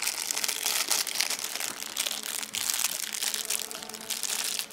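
Plastic wrapping being handled and crumpled, a run of quick, irregular crinkles and crackles.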